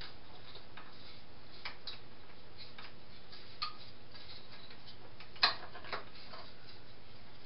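Small clicks and light knocks from hands fitting an LED ceiling light and its wiring overhead, the sharpest knock about five and a half seconds in, over a steady hiss.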